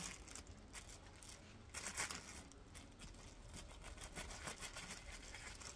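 Faint tearing and crackling of a dull knife cutting through soft, overripe jackfruit, with scattered small clicks and a louder crackle about two seconds in.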